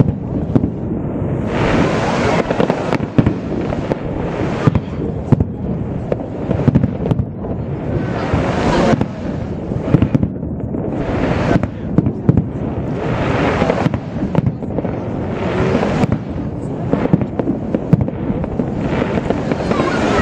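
Aerial fireworks bursting in a dense, unbroken run of sharp bangs and noisy bursts.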